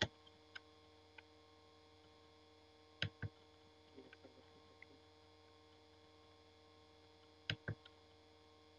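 Computer mouse clicks over a steady electrical hum: a few light taps at the start, a quick double click about three seconds in and another near the end.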